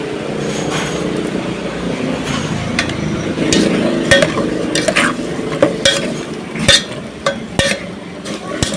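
Food sizzling in a hot pan while it is stirred, with scattered sharp clinks and scrapes of a utensil against the pan, coming more often in the second half.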